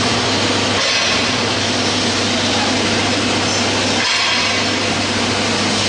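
Industrial vegetable dicing machine and its conveyors running: a loud, steady mechanical noise with a low hum underneath.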